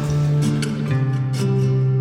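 Soft background music: plucked acoustic guitar playing slow, held chords.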